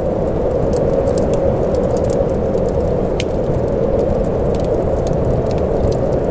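Steady rain with a dull, muffled wash and scattered sharp ticks of single drops.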